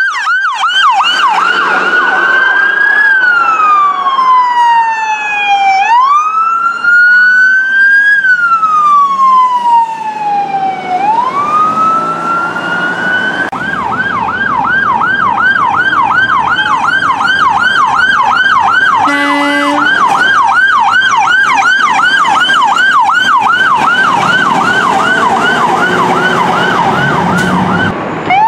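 Emergency vehicle sirens. First an ambulance siren on a slow wail, rising and falling about every five seconds. Then a tanker truck's siren on a fast yelp, about three cycles a second, with one short horn blast about two-thirds of the way in.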